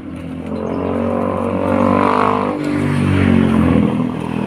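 Motorcycle engine accelerating: its pitch climbs, drops once about two and a half seconds in as it shifts up a gear, then climbs again.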